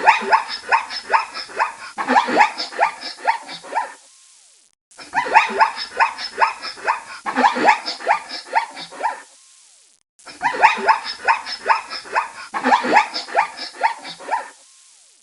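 An animal's barking call: a rapid run of short, harsh pulses, about four a second, repeated three times with brief silent gaps between.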